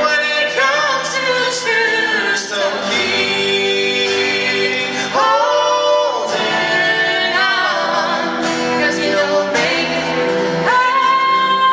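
A man and a woman singing a duet together, with an acoustic guitar strummed as accompaniment.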